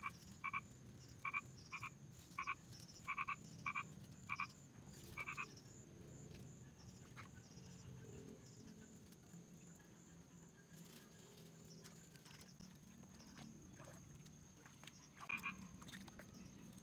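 Frogs croaking in short calls: a quick run of about ten in the first five seconds, then two more near the end, over a faint steady high hum.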